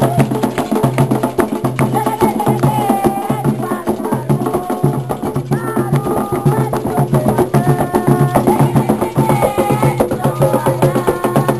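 Afro-Brazilian religious music: hand drums and a sharp, clacking percussion keep a fast, steady beat under group singing.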